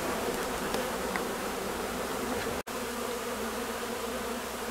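A swarm of honey bees buzzing steadily, with a brief break a little past halfway.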